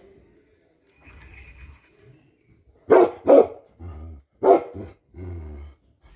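Bakarwal dog barking: two loud barks close together about three seconds in and a third a second and a half later, with quieter drawn-out animal calls in between.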